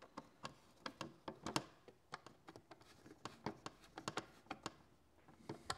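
Screws being tightened by hand into a motorcycle side cover: a run of faint, irregular small clicks and ticks.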